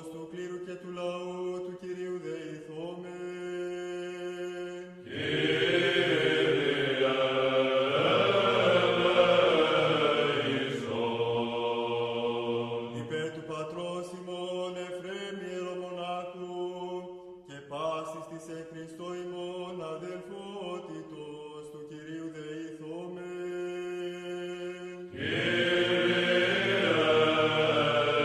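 Greek Orthodox Byzantine chant: voices sing a slow melody over a steady held drone note (the ison). It swells louder and fuller for several seconds about a fifth of the way in, and again near the end.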